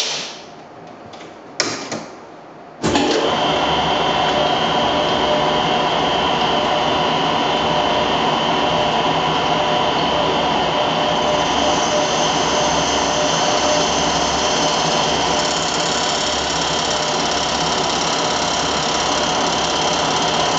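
Small turret lathe: two sharp knocks as it is set, then about three seconds in the machine starts and runs steadily through the cut, a constant hum with a noisy wash of cutting and coolant.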